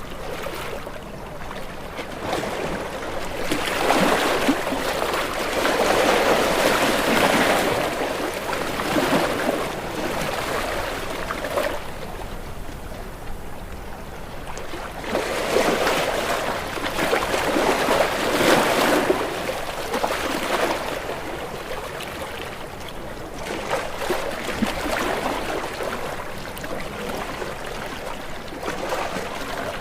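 Ocean waves breaking against rocks: a steady wash of surf that swells and ebbs, with two big surges, one a few seconds in and another about halfway.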